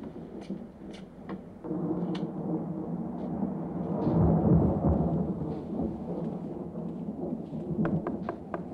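A deep rumble on the film soundtrack. It begins about two seconds in, swells to its loudest midway and then eases, after a few light clicks at the start.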